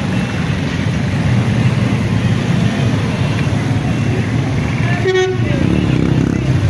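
Street traffic: motorcycle engines running as they pass close by, with one short vehicle horn toot about five seconds in.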